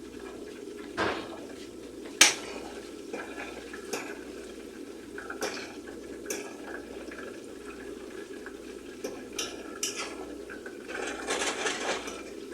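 A metal utensil clinking and scraping against a pan while turning frying chicken pieces, a dozen or so sharp knocks with the loudest about two seconds in and a busier run near the end, over a steady low hiss.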